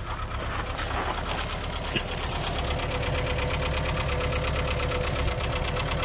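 VW T25 van's water-cooled petrol engine idling steadily, just brought back to running after standing for 20 years. A few clicks and rustles sound in the first two seconds.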